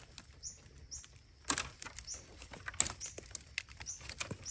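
Dry bamboo twigs and leaf litter rustling and crackling as a hand pushes into a wild bamboo clump, with two sharper snaps about a second and a half in and just before three seconds.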